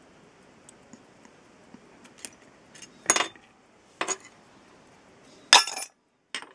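Small steel watchmaker's tool clicking and scraping against the brass bridges and balance cock of an 1880s M.J. Tobias pocket watch movement as the balance is worked free. A few faint ticks, then a handful of sharp metallic clicks and short scrapes from about two seconds in, the loudest about five and a half seconds in.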